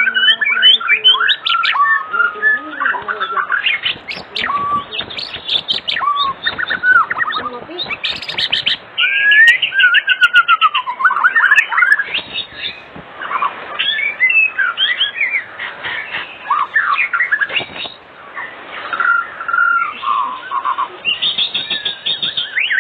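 White-rumped shama (murai batu) in full song: a rapid, unbroken run of varied whistles, slurred notes and chattering rattles, with a fast buzzy trill about nine seconds in.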